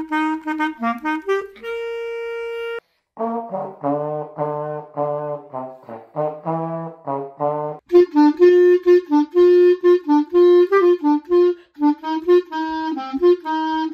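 Three solo phrases cut one after another: a clarinet playing a short run that ends on a held note, then a trombone playing a string of low, evenly spaced detached notes, then a clarinet playing a quicker melody from about eight seconds in. Student players, each recorded on their own.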